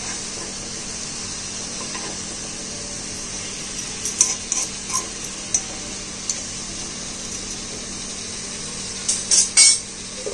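Spatula scraping and clicking against a non-stick kadai as stuffed peppers and tomatoes are turned over, in short clusters about four seconds in and again near the end. Under it runs a steady hiss of the food sizzling in the pan.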